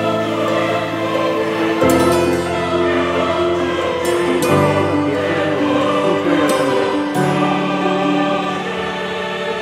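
Background music: choir-like singing over sustained chords that change every two to three seconds.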